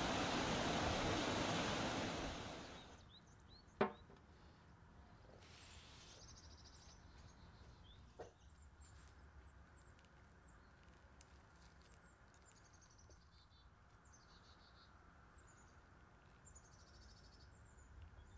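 Water rushing over a small waterfall, fading out about three seconds in. Then faint bird chirps, short falling calls repeated, with a sharp click about four seconds in and another about eight seconds in.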